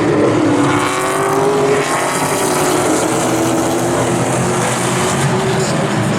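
Several pro late model stock cars racing together, their engines running at speed with several tones overlapping, the pitches rising and falling as the cars pass.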